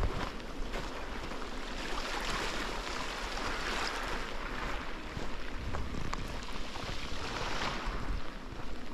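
Waves washing in on the shore in slow swells, with wind buffeting the microphone.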